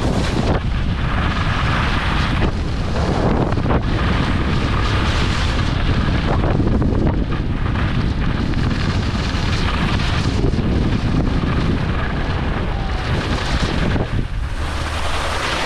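Wind buffeting the microphone during a fast downhill ski run, a loud steady rush with heavy low rumble, mixed with the hiss and scrape of skis sliding over snow.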